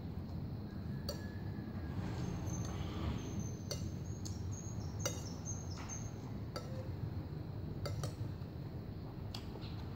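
Metal spoon clinking and scraping against a glass plate as fried rice is scooped up, with sharp irregular clinks about once a second.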